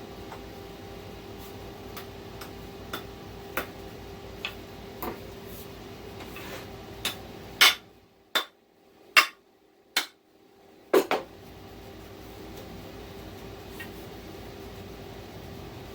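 Hammer striking, from light taps to about six sharp, hard blows in quick succession around the middle: steel wedges being driven into the top of the axe's wooden haft to lock the head on.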